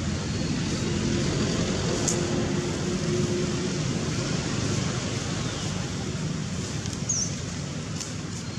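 Steady low background rumble of outdoor ambient noise with no clear single source. A brief high chirp sounds about seven seconds in.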